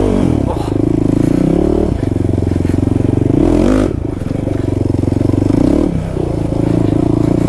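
Kawasaki KFX450R quad's single-cylinder four-stroke engine under way, revving up and backing off about every two seconds as the throttle is worked, with a brief rising rev before a drop near the middle.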